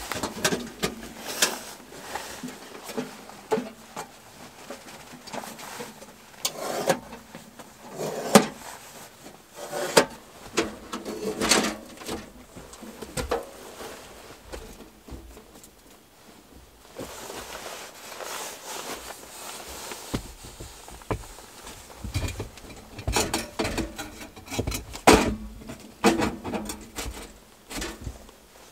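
Metal stovepipe sections being handled and fitted onto a small Winnerwell Nomad View wood stove: irregular clanks, knocks and scrapes of sheet metal, with a quieter spell about halfway through.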